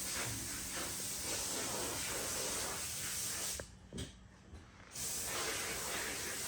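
Steady hissing background noise that drops away briefly about three and a half seconds in, then returns.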